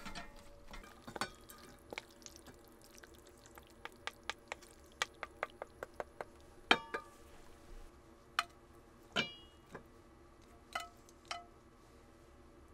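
Utensils and cookware clinking during camp cooking: a run of sharp taps and clicks, quicker between about four and six seconds in, a few of them ringing briefly like metal or glass struck.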